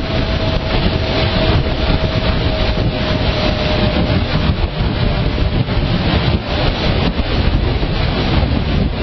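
Wind rushing over a GoPro microphone on a moving KTM motorcycle: loud, steady wind buffeting with engine and road noise under it. A faint steady whine fades out about four seconds in.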